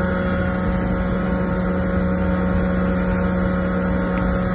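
York YVAA air-cooled screw chiller running, a steady drone of its compressor and condenser fans with a constant low hum. A brief high hiss sounds about three seconds in.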